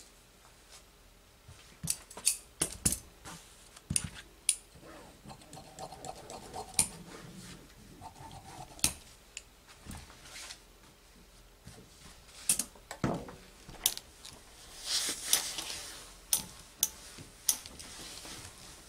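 Fusible interfacing rustling as it is laid over cut fabric collar pieces and smoothed by hand. Sharp clicks and taps on the cutting table run through it, and there is a brief hiss about fifteen seconds in, just before a steam iron is set on the interfacing.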